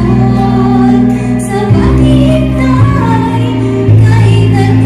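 A woman singing into a handheld microphone over instrumental accompaniment. Held bass notes underneath change about once a second.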